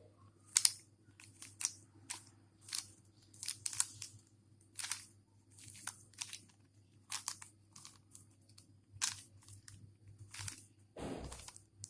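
Rubik's Cube being turned through an algorithm: a string of quick plastic clicks and scrapes as its layers turn, irregularly about one or two a second.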